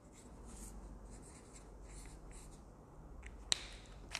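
Felt-tip marker drawing on paper: a run of faint, short scratching strokes, followed by one sharp click near the end.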